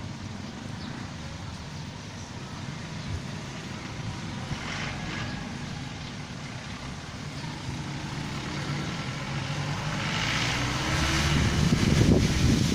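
Street traffic: a motor vehicle's engine hum with tyre and road noise, growing louder near the end as a vehicle passes close.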